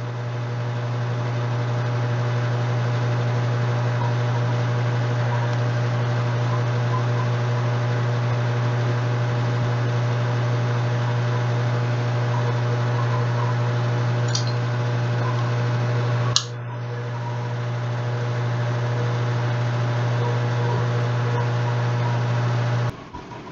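Steady low electrical or fan-like hum with a hiss over it, the room's background noise filling the gap with no speech. It dips briefly with a click about two-thirds of the way through and cuts off suddenly near the end.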